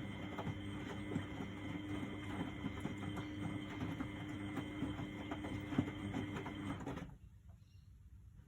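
A 1999 Miele Novotronic W828 front-loading washing machine running a Cotton 60 wash: a steady motor whir with many small knocks and sloshing from the tumbling load. It stops abruptly about seven seconds in, leaving only a faint hum, as the drum pauses between turns.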